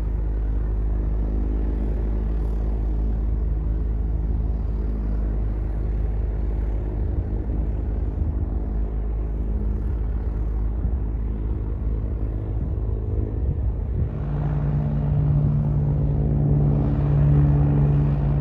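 Propeller aircraft's piston engine running steadily with a low rumble, growing louder and fuller about fourteen seconds in.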